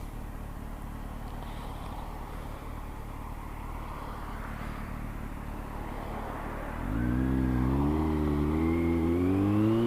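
Kawasaki Z900's inline-four engine under way, with steady wind and road rumble; about seven seconds in the engine note comes up louder and rises steadily in pitch as the motorcycle accelerates.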